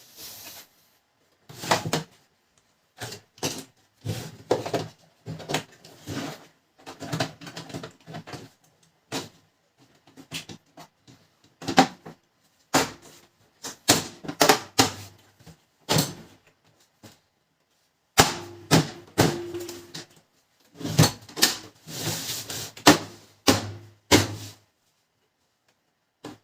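Irregular clicks, clacks and knocks of a Pantum M7102DW laser printer's plastic casing parts being handled and fitted back together.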